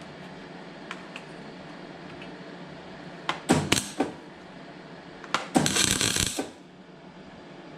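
Metal tools and parts clanking as they are handled: a few sharp knocks about three and a half seconds in, then about a second of dense rattling, over a steady workshop hum.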